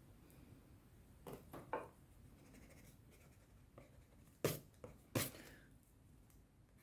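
Pencil scratching faintly on sketchbook paper, with a few sharp knocks. The two loudest knocks come about four and a half and five seconds in.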